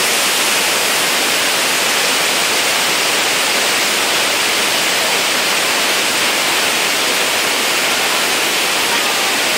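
Steady rush of a waterfall cascading over boulders, an even hiss that holds at one level throughout.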